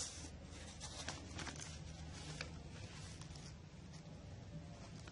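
Faint handling noise as a camera or phone is picked up and moved: a sharp click at the start, a few more clicks and rustles in the first two and a half seconds, then quieter scuffs, over a low steady hum.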